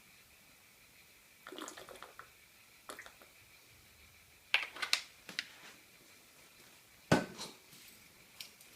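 Metal camping-stove gear being handled and set down: light clinks and clatters in a few short bursts, with one sharp knock, the loudest, about seven seconds in.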